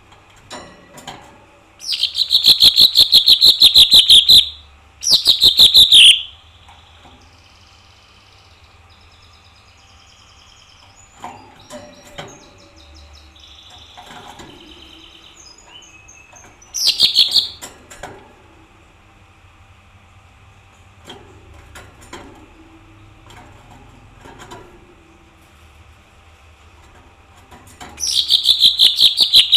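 Small green songbird singing vigorously in four loud bursts of very rapid, rattling notes. The first is about two seconds long, the next two about a second each, and the last about a second and a half near the end. Quieter chirps and twitters come in between.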